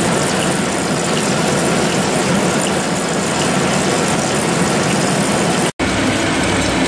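Large deep-hole boring machine running steadily as the steel workpiece turns on its rollers during a trepanning cut, a continuous mechanical noise. The sound cuts out for an instant just under six seconds in, then carries on.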